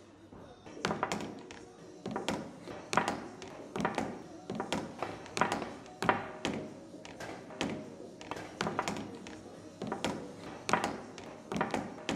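Sharp clacks and knocks, one or two a second in an uneven rhythm, each ringing briefly, with music under them.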